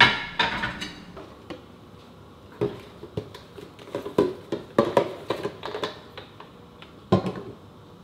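Dishes clinking in a sink, then plastic dish-soap bottles knocking and rattling as they are picked up and set down on a countertop. The loudest clink comes right at the start with a short ring. A quicker run of knocks comes in the middle and one more near the end.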